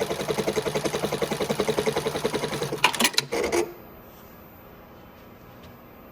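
Mitsubishi PLK-E0504 programmable pattern sewing machine stitching with a rapid, even rhythm. It stops a little under three seconds in with a few sharp clacks, leaving only a faint steady hum.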